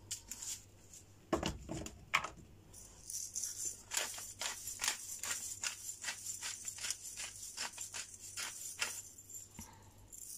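A few shakes of a salt shaker, then a hand-twisted pepper mill grinding peppercorns: a rapid run of rattling clicks, about four a second, lasting several seconds before it stops near the end.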